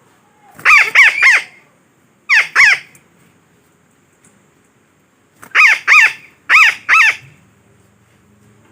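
Red-breasted parakeet (betet) calling, used as a lure call. There are three bursts of short, loud calls: three calls about a second in, two a second and a half later, then four more in the second half.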